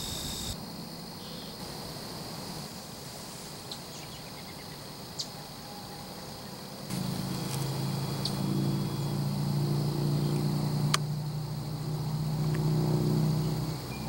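A low, steady engine drone starts about halfway through, swells, and fades near the end, over faint insect chirring. There is one sharp click about eleven seconds in.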